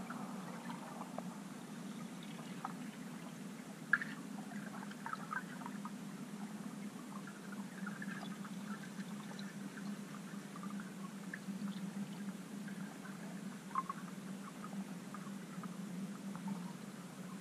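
Underwater ambience heard through a submerged camera: a steady low murmur with scattered faint clicks and crackles, a sharper click about four seconds in and another near fourteen seconds.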